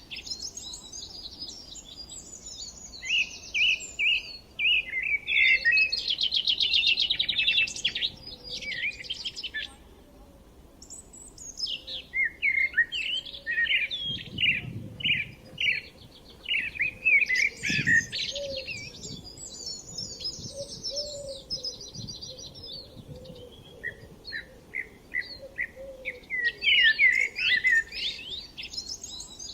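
Songbirds chirping and singing in bouts of quick, high trilled notes, with short pauses between phrases and a brief lull about ten seconds in.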